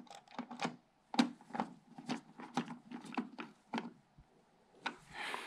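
Screwdriver turning the single small screw that holds the plastic lamp cover of a projector: a string of light, irregular clicks. A brief rustle comes near the end.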